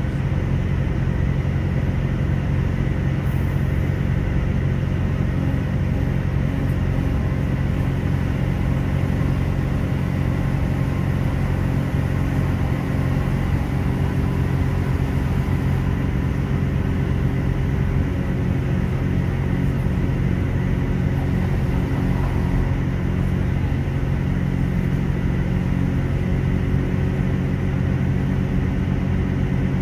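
Class 166 diesel multiple unit heard from on board: steady rumble of its underfloor diesel engine while the train runs, the engine note stepping to a new pitch about halfway through and again a few seconds later.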